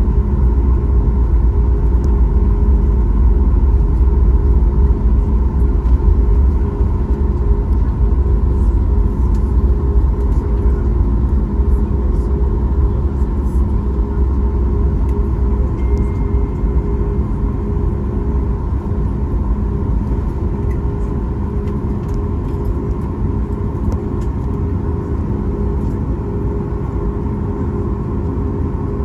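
Boeing 737 MAX 8 cabin noise: its CFM LEAP-1B jet engines running steadily with a deep rumble and a steady whine. The low rumble eases about six or seven seconds in, and the overall level then drops slowly.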